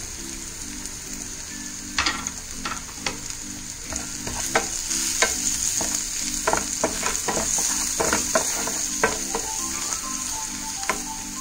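Chopped shallots, garlic and spices sizzling in oil in a non-stick pan, with a steady hiss. From about two seconds in, a wooden spatula stirs the mixture, knocking and scraping against the pan many times.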